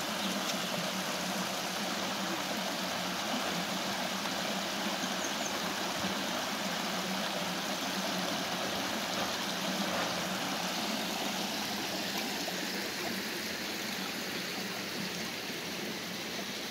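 Water spilling over a low weir in a stone-lined channel, running steadily, a little quieter near the end.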